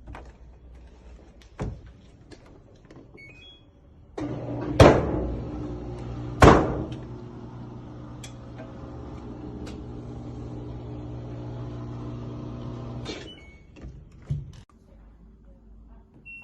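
Microwave oven: two short keypad beeps, then the oven starts up with a steady electrical hum. Two loud clunks come shortly after it starts. The hum runs for about nine seconds and cuts off with a click near the end.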